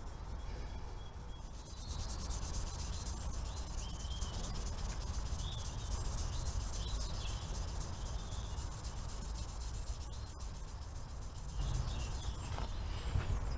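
Fine 0000-grade wire wool rubbing steadily over the alloy engine casing of a Royal Enfield Classic 350, polishing the metal.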